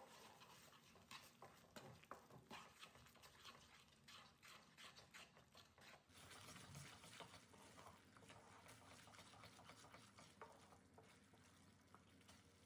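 Faint wooden spatula stirring and scraping thick tamarind chutney in a nonstick frying pan, with irregular scrapes and taps that turn more even about halfway through, under a soft sizzle from the simmering mixture.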